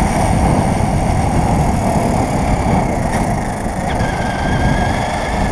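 RC car driving fast on asphalt, heard from a camera mounted on it: a steady, loud rumble of tyres and chassis vibrating over the pavement, with a faint motor whine that shifts in pitch about four seconds in.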